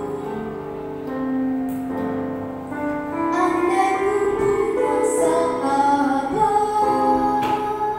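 A young girl singing a song into a handheld microphone, holding long notes, over instrumental accompaniment.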